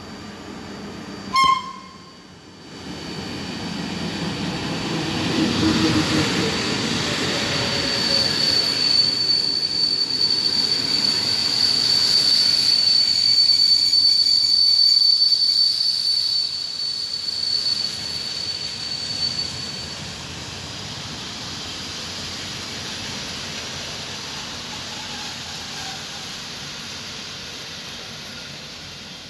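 PKP Intercity passenger coaches behind an EU07 electric locomotive rolling along the platform. A loud, steady, high-pitched wheel and brake squeal holds for about twelve seconds, then gives way to a quieter, even rumble. A short, sharp whistle-like toot sounds about a second in.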